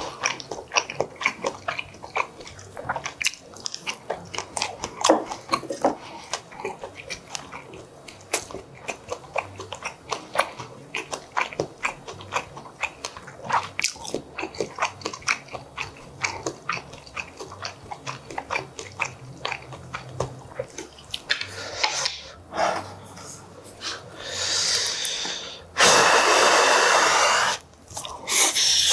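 Close-miked chewing and biting of sausage and braised pork kimchi, many wet clicks and smacks a second. Near the end a louder rushing, breathy noise lasts about two seconds.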